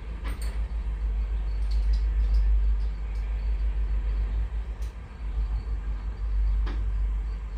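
Low, gusting rumble of wind buffeting the microphone, with a few faint clicks from hand tools.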